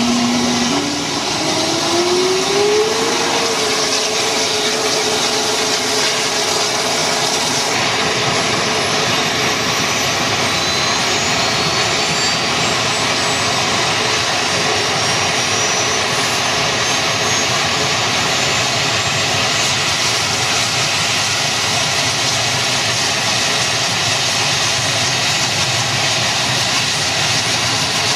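Mi-24 helicopter's turboshaft engines spooling up at start-up: a loud, steady turbine rush with a whine that climbs in pitch over the first few seconds, then a higher whine that rises steadily again from about eight seconds in as the main rotor begins to turn.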